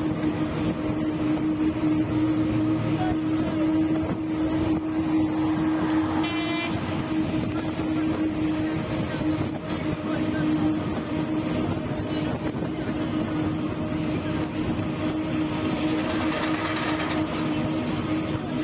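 A bus's engine drones steadily at cruising speed, with road and tyre noise heard from inside the moving bus. Two short vehicle horn toots sound, one right at the start and one about six seconds in.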